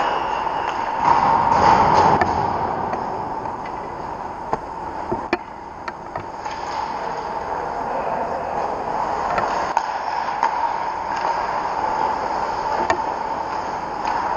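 Ice hockey rink ambience during play: skate blades scraping the ice and scattered sharp clicks of sticks and puck over a steady rink hum.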